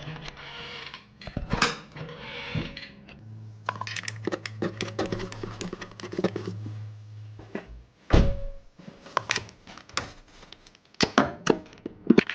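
Scattered metal clanks, clicks and knocks of tools and parts as a new engine mount is worked back into place in a car's engine bay, with a low steady hum from about three seconds in to about eight seconds in.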